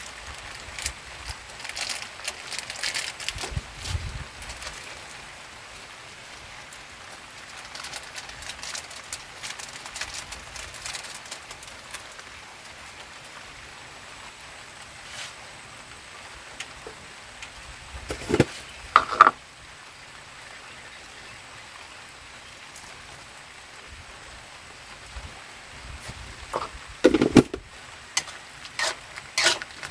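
Light drizzle pattering steadily with scattered drop ticks, busier in the first dozen seconds. Two sharp knocks come about two-thirds of the way through, and a few more knocks and clatter come near the end.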